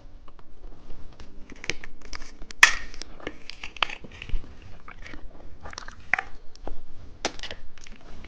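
Candy being chewed and crunched close to the microphone: irregular crisp bites and crackles, with one sharper crack about two and a half seconds in.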